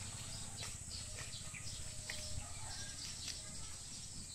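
Birds chirping in short scattered calls over a steady high insect drone, with a low background rumble.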